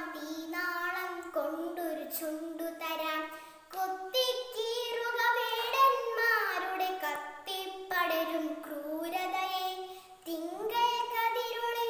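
A young girl singing a Malayalam poem solo in the melodic recitation style, in long held phrases with two short breath pauses, about four seconds in and near the end.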